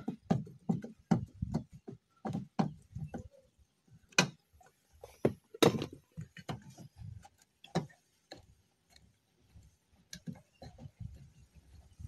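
A run of small, evenly spaced clicks, about two to three a second, as a screwdriver works the Phillips screw in a Toyota Corolla's plastic interior door-handle bezel. Two louder clicks come about four and six seconds in, followed by scattered lighter clicks.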